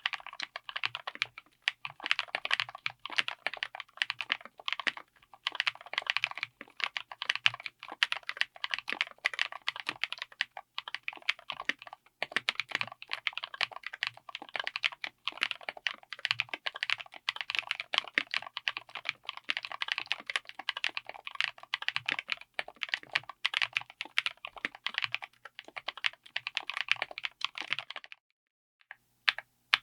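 Fast, continuous typing on a mechanical keyboard with Keebfront Bigwig long-pole linear switches (HDPE and PBT housings) in an aluminium Tofu60 case with an FR4 plate, each keystroke bottoming out in a quick clack. The typing stops about two seconds before the end.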